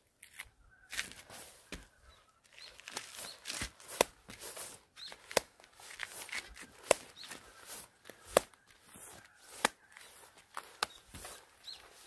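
A run of sharp hand slaps from an exercise routine. The loudest come about every second and a half through the second half, with softer slaps between them.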